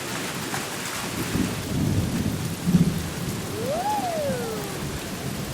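Cartoon storm sound effects: steady rain with low thunder rumbling, and a single whistle that rises and then falls about four seconds in.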